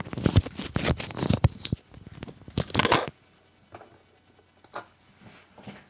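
Rustling and clicking handling noise, dense for about three seconds, then a few scattered soft clicks.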